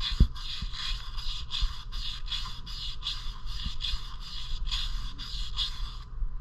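Emery cloth scrubbed round inside the cylinder bore of a Predator 212cc engine, a quick rhythmic rasping of about three strokes a second that stops about six seconds in. It is cleaning rust pitting from the bore so that the seized piston frees up. A single knock sounds near the start.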